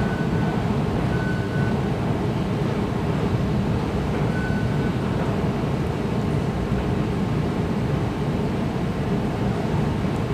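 Steady low rumble of an underground MRT station platform's background hum, with three short, faint high beeps in the first five seconds.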